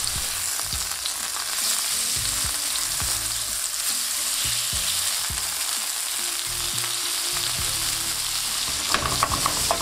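Cajun-spiced chicken breasts sizzling steadily as they fry in oil and butter in a nonstick pan, with scattered clicks of tongs against the pan as the pieces are turned, more of them near the end.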